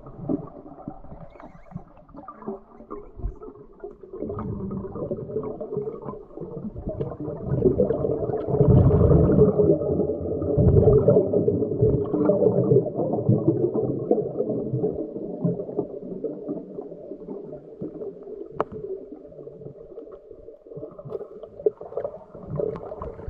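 Muffled underwater noise heard through an underwater camera's microphone: a dull wash of water sound with no highs. It swells louder for several seconds a third of the way in, then settles back.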